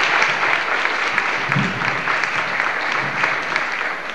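Audience applauding in a hall, with many individual claps, dying away near the end.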